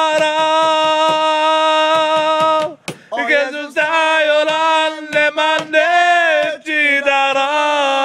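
A man singing a worship song unaccompanied, holding long wordless notes, with a short break about three seconds in.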